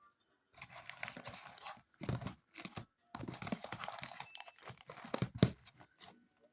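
Plastic crinkling and rustling in several stretches as small items are handled, with short knocks of things being set down; the sharpest knocks come near the end.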